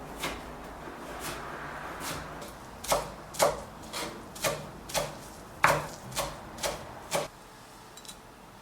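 Knife chopping on a cutting board: about ten sharp chops at roughly two a second, starting about three seconds in and stopping about seven seconds in.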